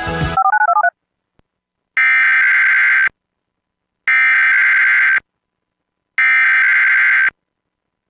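Emergency Alert System SAME header: three bursts of buzzing digital data tones, each about a second long and a second apart, which encode the alert for an automated weekly test. Just before them the background music cuts off and a quick run of short beeps sounds.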